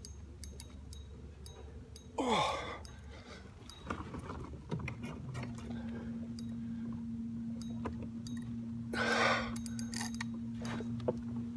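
A man's loud exhales or sighs, one about two seconds in with a falling pitch and another near the nine-second mark, over scattered small clicks. A steady low hum starts about halfway through.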